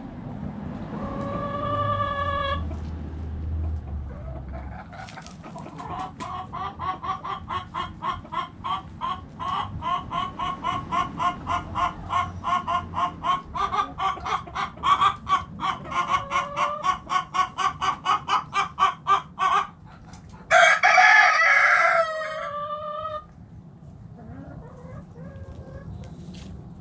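Backyard chickens: a hen clucks in a fast, even run of about four clucks a second for some fifteen seconds. Then a rooster crows once, the loudest sound, about three-quarters of the way in.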